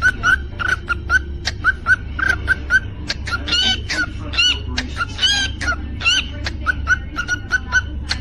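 Cockatiel chirping in short repeated notes, several a second, breaking into longer gliding whistled calls in the middle, with sharp clicks and a steady low hum underneath.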